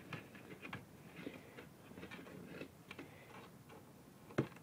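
A Shiba Inu's paws and claws tapping and scraping on wooden deck boards as it paws at a toy: scattered light clicks, with one sharper click near the end.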